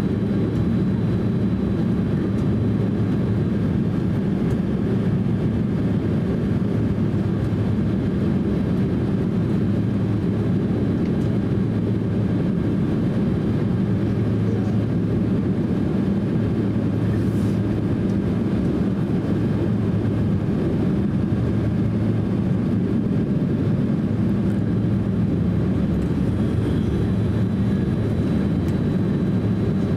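Steady cabin noise aboard a Boeing 767-300 taxiing after landing: the engines run at low power with an even low hum and a faint, thin high-pitched whine.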